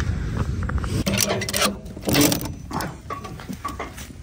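Ratchet strap being worked over boats loaded on a trailer: a run of irregular clicks and metallic rattles, densest in the middle and thinning out near the end.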